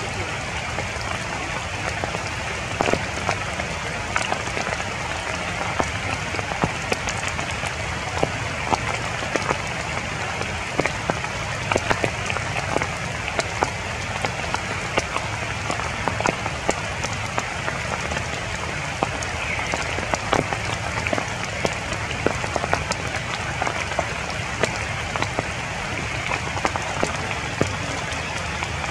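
Steady rain falling on tree foliage: a constant hiss of rain with many sharp, irregular ticks of drops striking the leaves close by.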